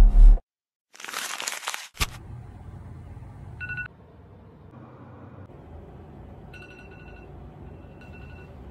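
The last moment of a bassy music track cuts off, followed by a second-long rush of noise. Then a smartphone alarm beeps in short groups of a thin high tone over a steady low rumble of city traffic.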